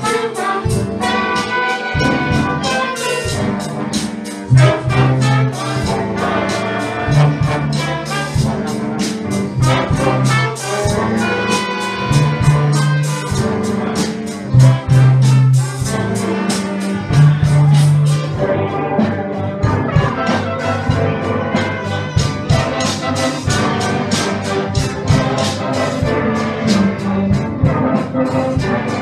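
A mixed school ensemble of violins, trumpets, clarinets, saxophones and trombone playing a tune together, brass and strings sounding at once with strong repeated low notes underneath.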